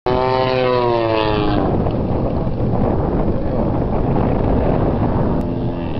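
Four-stroke engine of a large RC Extra 300 aerobatic plane in flight: its note falls steadily in pitch over the first second and a half, then merges into a noisy rush with wind on the microphone.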